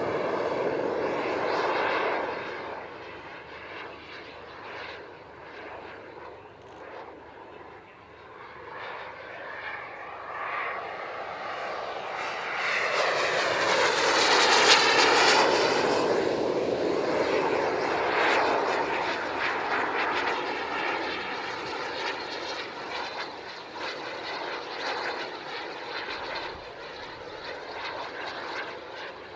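Radio-control model F-104 Starfighter with a jet turbine flying past: the turbine's rush and whine fade, then build to a loud close pass about halfway through, the whine dropping in pitch as it goes by, and fade away again.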